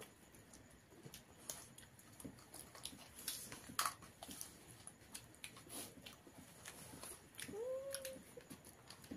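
Faint eating by hand: scattered clicks and smacks of fingers working rice on plates, and chewing. Near the end there is one short whine that rises and then holds steady.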